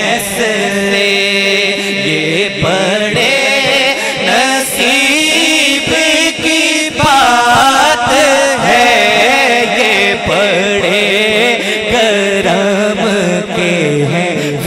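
Male voice singing a naat into a microphone, drawing out long, wavering ornamented notes over a steady low drone.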